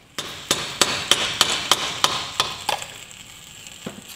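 Hammer blows on steel, about three a second for nearly three seconds, then one lighter knock, over a steady hiss: driving at a corroded, seized woodruff key on an outboard driveshaft.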